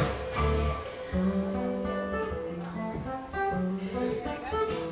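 Background music led by a plucked acoustic guitar, with a bass line under it.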